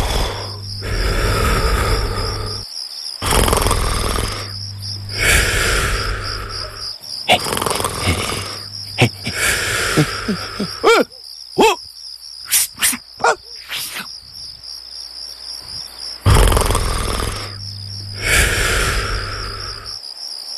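Comic snoring: long, loud snores with a low buzz, each followed by a breathier out-breath, repeating about every three to four seconds over a steady chirping of crickets. About halfway through, the snoring breaks off for a run of short whistling squeaks and pops, then starts again.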